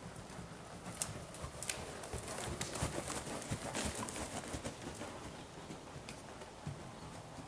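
Pony's hoofbeats at a working trot on a loose indoor arena surface, getting louder as it passes close by about three to four seconds in, then fading.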